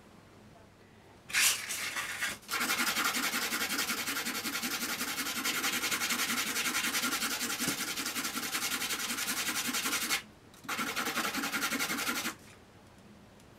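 Metal part rubbed back and forth on a sheet of sandpaper laid flat on the bench, in quick, even strokes. It comes in three spells: a short burst about a second in, a long run of about eight seconds, and a shorter one near the end.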